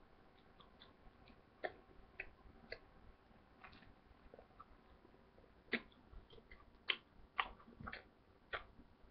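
Near silence broken by a scattering of faint, short clicks at irregular moments, more of them in the second half.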